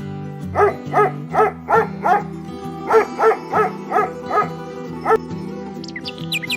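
Background music with a dog barking over it, about a dozen short barks in two quick runs.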